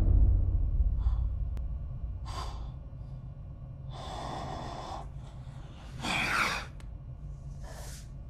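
A man breathing heavily in five separate, short breaths, the loudest a gasp about six seconds in. A low rumble dies away over the first two seconds.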